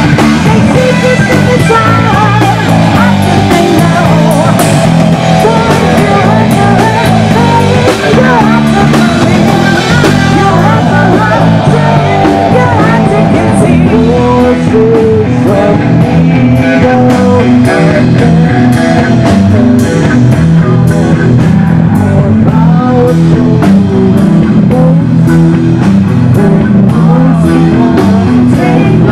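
Live rock band playing loud: electric guitars, bass guitar and drum kit, with a singer's voice over the top.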